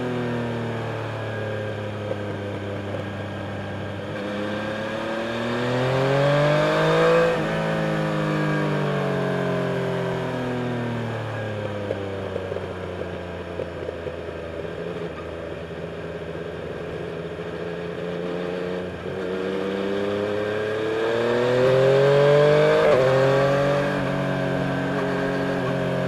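Yamaha Tracer 900's 847 cc inline three-cylinder engine heard on board while riding. The revs climb under acceleration to a loud peak about seven seconds in and fall away, then climb again to a second peak near the end before dropping.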